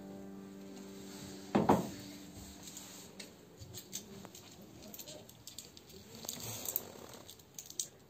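A single dull thump about a second and a half in, then faint scattered clicks and rustles of handling.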